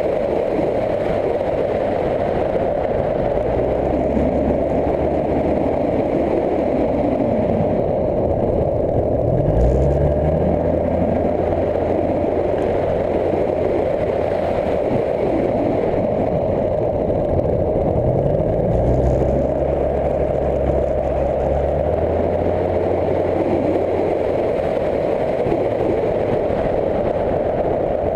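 Motorcycle on the move: engine running under a steady rush of wind and road noise, its pitch climbing twice, about ten and nineteen seconds in, as it accelerates.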